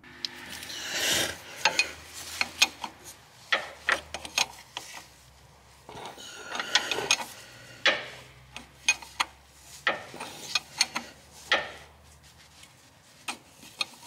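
Ratchet wrench clicking and scraping in short groups of strokes while loosening the power steering fluid pressure switch, the hand-held tool working the 19 mm fitting loose.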